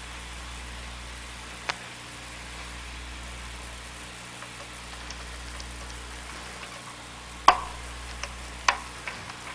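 A few sharp clicks from the oscilloscope's push-button switches as extenders are pressed onto them and the switches are tried, the loudest about seven and a half seconds in, over a steady low hum and hiss.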